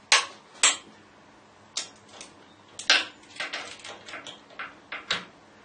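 Torque wrench clicking, a dozen or so sharp, unevenly spaced clicks, bunched closer together between about three and four and a half seconds in. High-tensile M10 set screws are being tightened toward 70–80 newton metres.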